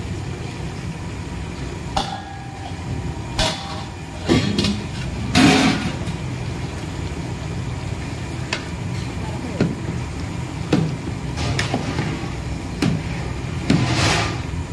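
Metal spoon knocking and scraping against a metal cooking pot as diced potatoes are tipped in and the vegetables stirred: a string of separate clanks, the loudest about five seconds in, over a steady low hum.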